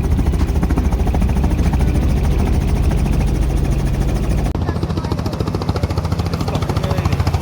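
Helicopter running, a steady low rumble with a rapid, even beat from the rotor blades. The sound breaks off abruptly about halfway through and resumes straight away with a more pronounced pulsing.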